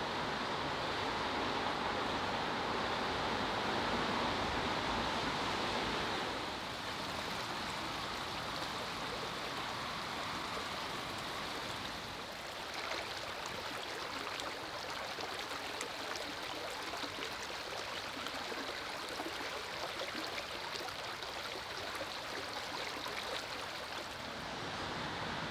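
Steady rushing noise with no clear single source. It changes character abruptly about six seconds in and again about twelve seconds in.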